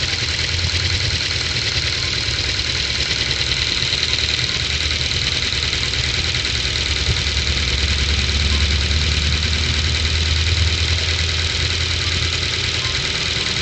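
Ford Focus II's 1.6-litre four-cylinder petrol engine idling steadily after a cold start, with a knock from the valve train that goes away once the engine warms up. The owner takes it for valve clearances needing adjustment by replacing or reselecting the buckets or the shims under them.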